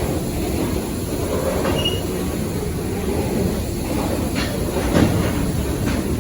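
Freight train rolling past, a steady rumble of wagon wheels on the rails with a few sharp knocks, the loudest about five seconds in.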